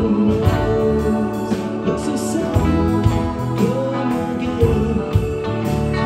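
Live rock band playing an instrumental passage: electric guitar, keyboard, bass guitar and drums, with one sustained note bent upward about four seconds in.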